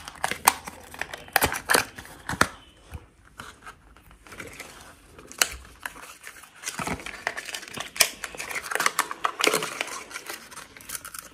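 Paper and thin cardboard packaging rustling and crinkling as a charging cable is unwrapped and pulled from its cardboard holder, with scattered sharp clicks and snaps. It goes quieter for a moment about three seconds in, then turns into denser rustling.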